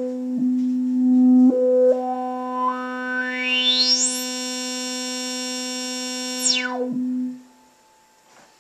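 Analog synthesizer tone at one steady pitch through a DIY Music From Outer Space 12 dB state-variable filter, run on +/-15 V. The filter's resonant peak steps up through the harmonics, then sweeps smoothly up to a very high, thin brightness, holds there, and sweeps quickly back down. The tone cuts off about seven seconds in.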